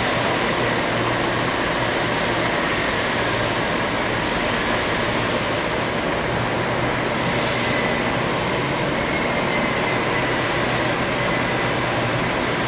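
Steady machinery drone: a constant low hum under a dense hiss, with a faint high whine.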